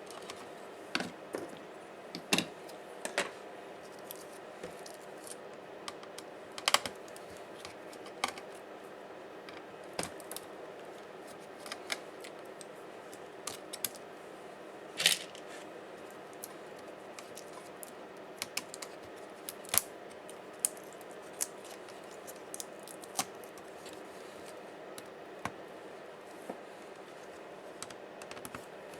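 Irregular sharp clicks and taps of small plastic and metal parts being handled, pried and unclipped while a Dell Latitude 5480 laptop is taken apart, a few of them much louder, over a faint steady hum.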